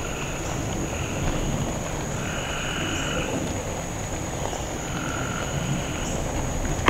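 Frogs calling in a swamp: several separate calls, each under a second long, over a steady high-pitched tone and a low rumble. A short thump near the end.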